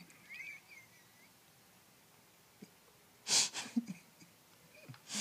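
A baby sneezing once, a short sharp burst about three seconds in, followed by small mouth clicks.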